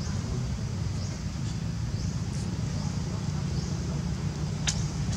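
Outdoor ambience: a steady low rumble with short, high, rising chirps repeating every half-second to second. A single sharp click comes near the end.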